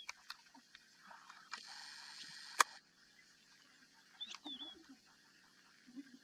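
Quiet open-air ambience with soft scattered clicks and rustles and a short chirping call about four seconds in. A brief hiss of noise comes about one and a half seconds in, with a sharp click, the loudest sound, near its end.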